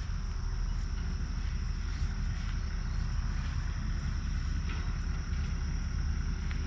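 Mower engine running steadily, a low even hum, with a steady high-pitched insect drone over it.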